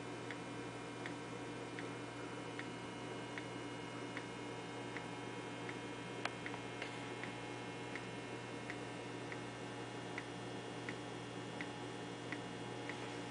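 Three-piece airlock bubbling steadily, a small blip about every three-quarters of a second as CO2 from vigorous primary fermentation of beer pushes through the water in it. One sharper click about six seconds in, over a steady low hum.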